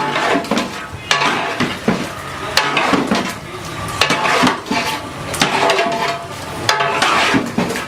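A metal cooking utensil stirring in a metal pan, clanking and scraping against it in irregular strikes about once or twice a second, each with a short metallic ring.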